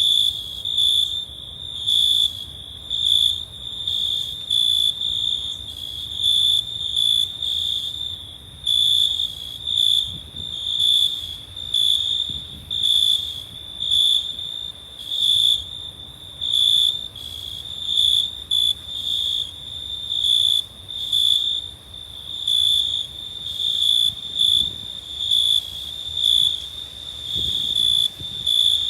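Crickets chirping: a high, steady trill that swells into a loud pulse about once a second, over and over.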